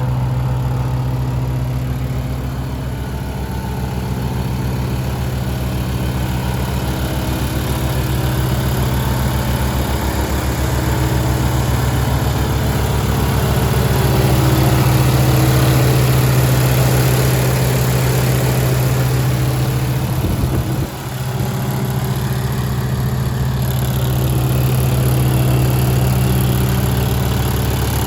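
2022 Bandit 90XP wood chipper's engine running steadily at idle, with a brief dip in the note about twenty seconds in.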